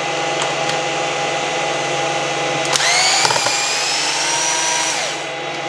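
Cordless electric screwdriver with a 2.5 mm hex bit running steadily as it backs out hex screws from a plastic RC truck chassis. About three seconds in, a higher whine sweeps up and holds for a couple of seconds, then drops away near the end.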